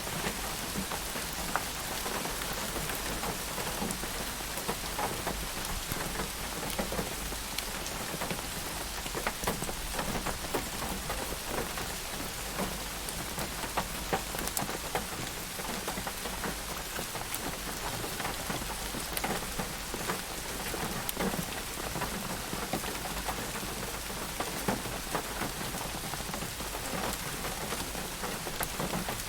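Steady rain falling on a surface, an even hiss with many distinct drops ticking through it.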